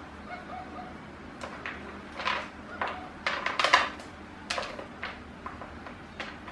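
Hands rubbing and scrubbing the skin of a raw plucked chicken, a run of short rustling, scraping strokes that bunch together and are loudest about halfway through.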